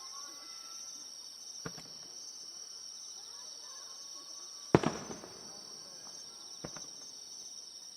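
Fireworks going off: one loud bang just under five seconds in with a short echoing tail, and two fainter thuds before and after it, over the steady chirping of crickets.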